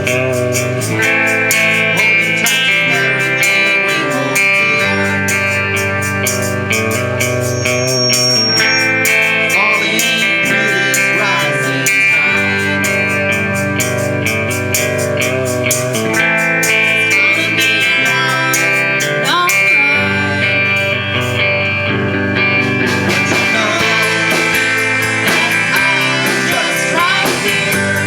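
A live band playing a slow-paced song, led by guitars.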